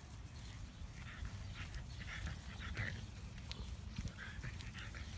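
A dog on a walk, panting and sniffing in short breathy puffs, with scattered light ticks and a steady low rumble underneath.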